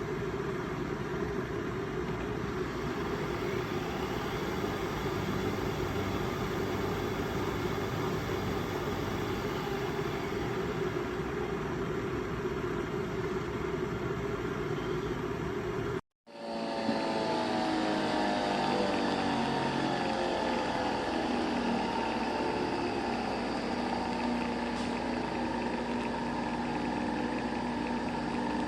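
Nespresso Vertuo Next coffee machine running a cycle: a steady whirring hum of its motor and pump. It cuts out briefly about 16 seconds in, then starts again with a different whir whose pitches slide for the first couple of seconds before settling.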